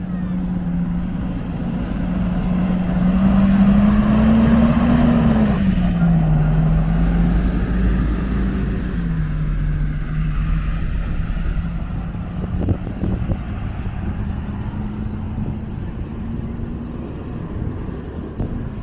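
An engine droning steadily as it passes, loudest about four seconds in, its pitch rising briefly then dropping and holding lower as it slowly fades.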